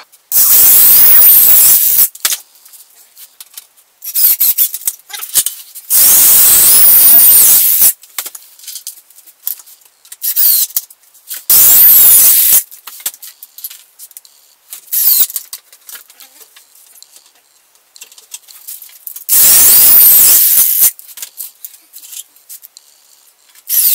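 Handheld electric drill run in repeated bursts, drilling and screwing through pre-drilled holes to join the melamine chipboard panels of a cabinet box. There are about four long runs of a second or two, with a high whine that shifts in pitch, and shorter spurts in between.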